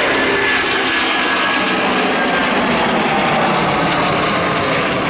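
Airbus A330-343's two Rolls-Royce Trent 772B-60 turbofan engines at takeoff thrust as the airliner climbs out, a loud steady jet roar with several whining tones running through it.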